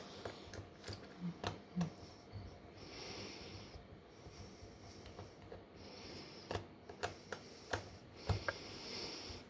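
Light clicks and taps of small repair tools and phone parts being handled during smartphone disassembly, a dozen or so scattered through, with short stretches of soft hiss between.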